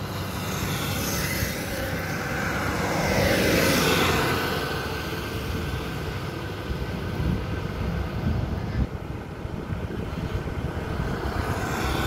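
A tipper truck passes close by on the road: its engine and tyres swell to their loudest about four seconds in, then fall in pitch and fade as it drives away, over a steady low drone of diesel engines. Near the end another vehicle, a motorcycle, starts to approach.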